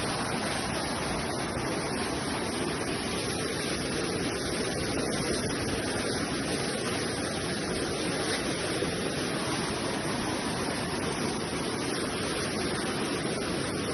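Steady rushing of a flood-swollen river.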